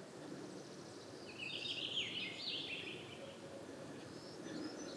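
A songbird singing one short phrase of quick falling high notes about a second and a half in, over faint steady forest ambience.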